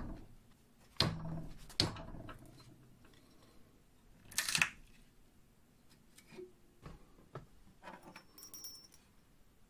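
Hand-tool handling at a steel bench vise: several sharp metal knocks and clunks with a short low ring in the first two seconds, a brief scraping rasp about four and a half seconds in as the screwdriver is worked in the vise, then light clicks and taps of the parts being handled.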